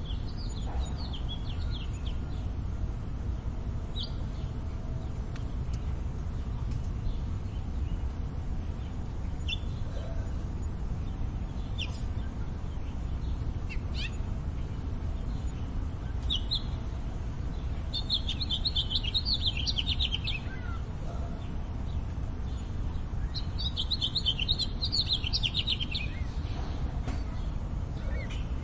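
Small songbirds chirping in scattered short calls over a steady low urban rumble, with two longer bouts of rapid chattering song, one past the middle and one near the end.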